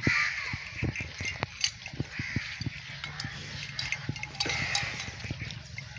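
Cattle and water buffaloes feeding at a trough of chopped fodder: irregular crunching, chomping and rustling of fodder as they eat.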